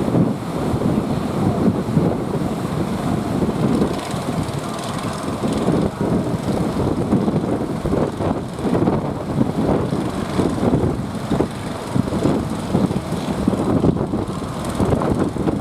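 Boat under way through sea waves: a dense, unsteady rumble of motor and water, with wind buffeting the microphone.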